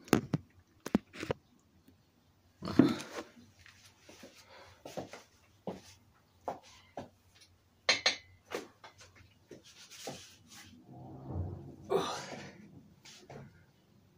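Irregular knocks, clicks and rustles of handling, as a plate-loaded dumbbell is picked up from a weight bench, with a sharp knock about eight seconds in. The room is small and echoey.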